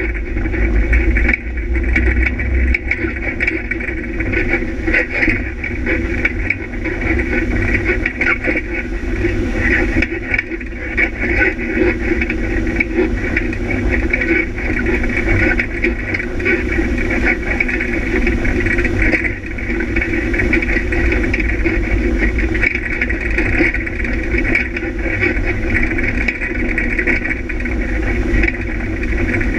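Engine of an off-road rally vehicle running steadily under way along a rough dirt track, with a continuous low rumble.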